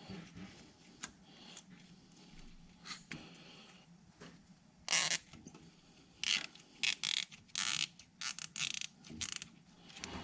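Plastic zip tie being pulled tight through its ratchet head: a series of short zipping rasps in the second half, after quieter handling noise.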